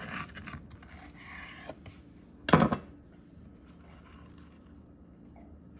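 Knife cutting through a pan-fried sandwich, the toasted bread crust crunching under the blade, with a single sharp knock about two and a half seconds in as the knife comes down through it.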